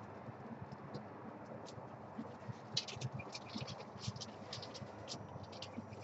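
Birds at a backyard seed feeder: a quick, irregular run of short, high-pitched ticks and chirps that starts about halfway through, over a steady low background hiss.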